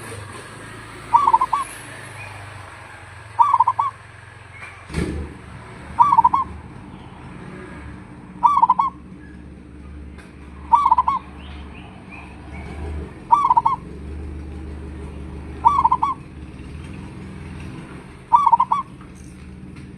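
Zebra dove (perkutut) cooing: a short trilled coo phrase repeated eight times at an even pace, about every two and a half seconds. A single sharp click about five seconds in, and a low hum underneath after it.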